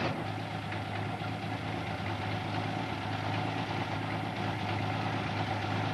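1956 Ford Zephyr Mk II's inline six-cylinder engine idling steadily. It is loud and noisy because of holes in the exhaust pipe coming from the engine.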